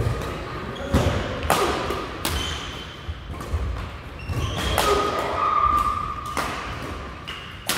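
Badminton rackets striking a shuttlecock in a doubles rally, a string of sharp smacks at irregular intervals. Between them, shoes squeak briefly and feet thud on the court floor.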